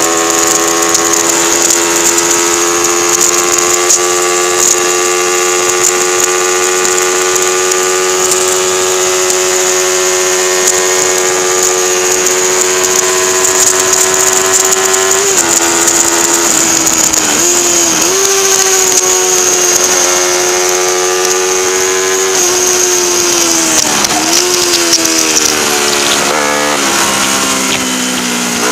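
Race-prepared 1977 Honda 125 twin's small four-stroke parallel-twin engine, heard from the bike itself, held at high steady revs for about the first half. After that the revs drop sharply and pick up again several times, as at gear changes going into the bends.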